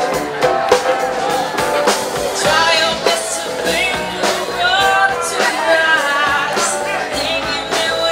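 A blues band playing amplified music through loudspeakers, with a steady drum beat and a singer coming in about two and a half seconds in.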